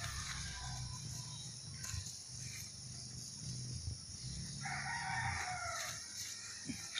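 A rooster crowing once, a call of about a second and a half with a falling end, about two thirds of the way through, over a low steady hum.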